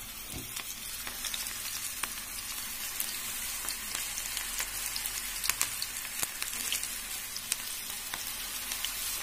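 Wheat-flour and onion pakoda dough deep-frying in hot oil: a steady sizzle with scattered crackling pops. It starts suddenly as the first lump goes into the oil and carries on as more are dropped in.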